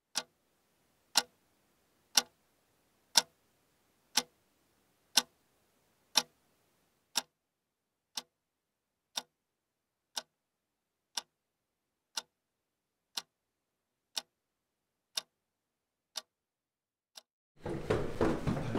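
A clock ticking once a second, about eighteen sharp ticks with dead silence between them, fainter after the first several. Noisy background sound comes in near the end.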